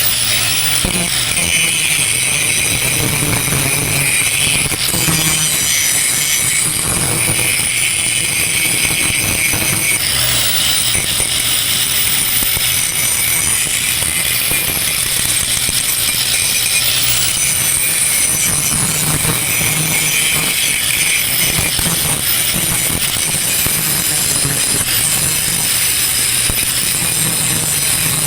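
Angle grinder with a grinding disc grinding down a stick weld on steel, running continuously with a high whine. The grinding noise swells and eases every few seconds as the disc is pressed into the weld and let off.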